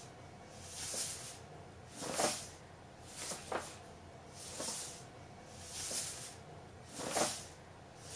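Soft, rhythmic hissing breaths, one about every 1.2 seconds, from a cat hidden inside a paper bag.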